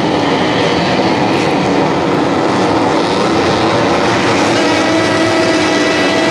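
A pack of tuned 150cc four-stroke underbone race motorcycles revving together on the starting grid, a loud, dense mix of many engines held at high revs while waiting for the start lights.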